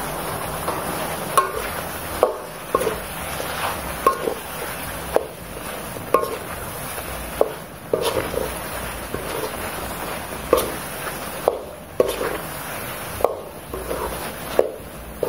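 A metal slotted spoon stirs chicken feet in a thick sauce in a wok, knocking and scraping against the pan about once a second at an uneven pace.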